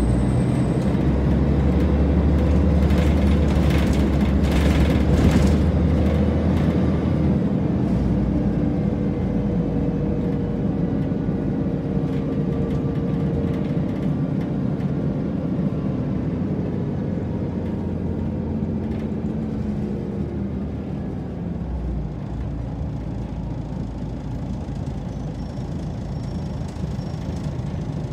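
Scania L113CRL bus's rear-mounted 11-litre six-cylinder diesel engine, heard from inside the passenger cabin while the bus is under way. The drone is strongest early on and eases off through the second half as the bus slows.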